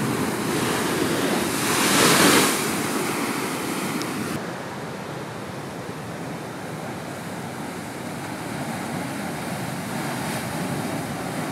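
Ocean surf breaking and washing, with a louder surge of breaking whitewater about two seconds in, then a softer, steady wash.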